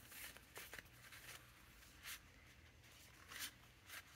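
Near silence, broken by a few faint, brief rustles of card swatches on a metal binder ring being handled and leafed through.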